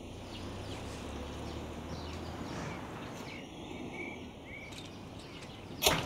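Outdoor ambience: a steady low rumble and background noise with scattered small bird chirps. Just before the end, a single sharp knock is the loudest sound.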